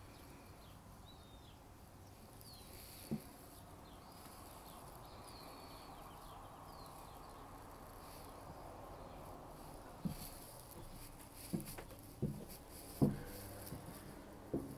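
Quiet outdoor air with birds chirping now and then. In the second half comes a run of low, uneven thuds of footsteps, loudest about two-thirds of the way through.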